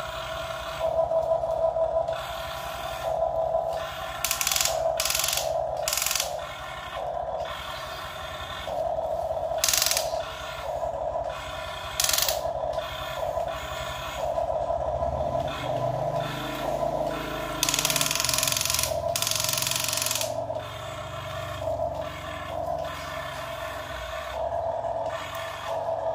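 Electric gear motors of a Huina radio-controlled excavator whining steadily as the arm and bucket work, with short hissing rushes of sand being scraped and poured.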